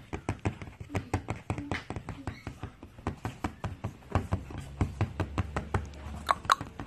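Rapid irregular taps and thumps, several a second, as a pug puppy paws, scrabbles and pounces on a cushion; the two sharpest, loudest sounds come near the end.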